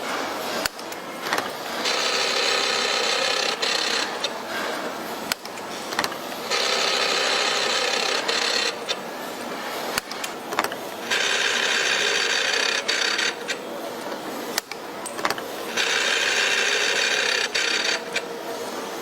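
A machine working in repeated cycles: four loud rasping stretches of about two seconds each, evenly spaced, with quieter mechanical clicks between them.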